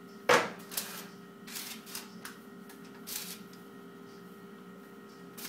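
Spatula scraping and spreading sponge batter over baking parchment on a tray: one sharp scrape about a quarter second in, then several softer scrapes and rustles. A steady hum runs underneath.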